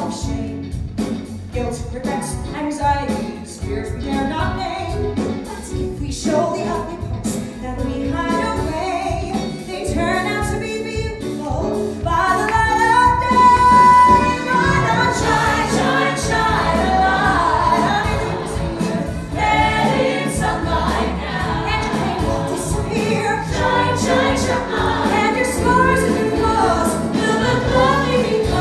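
Live musical-theatre song: a woman singing lead into a microphone over a band. A long held note about thirteen seconds in is the loudest point.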